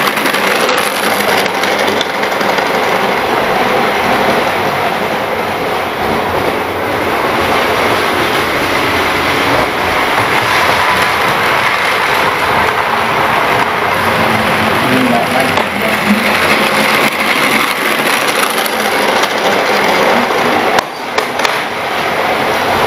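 Model train running on its track: a steady electric motor hum with the wheels rolling over the rails, dipping briefly near the end.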